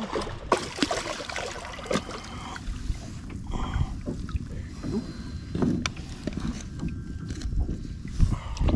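Handling noise on a small boat's deck: scattered knocks, taps and rubbing over a steady hiss of water and wind on the microphone, with a heavier thump near the end.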